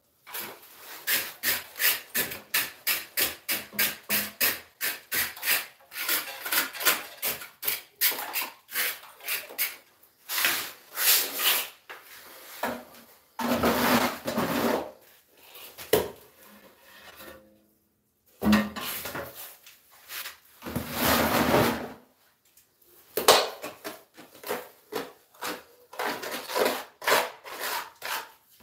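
Scraping strokes of a hand tool over a floor being tiled, rubbing across tile and mortar: quick strokes about three or four a second at first, then slower, irregular ones with a few longer scrapes lasting a second or more.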